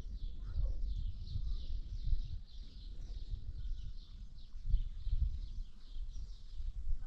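Outdoor ambience: continuous high, rapid chirping of small birds over an uneven low rumble.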